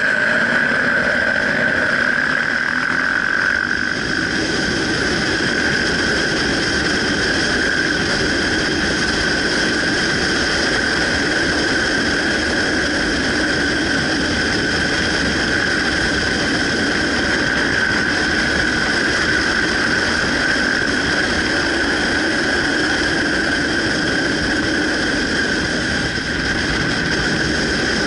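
Onboard noise of a motorcycle riding at steady speed: wind and engine noise with a steady high-pitched whine throughout.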